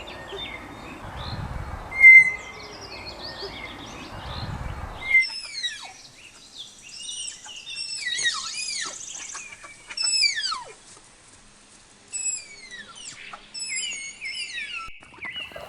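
Tapir giving shrill whistling squeals: one short whistle about two seconds in over background noise, then from about five seconds a quick series of high whistles that fall in pitch.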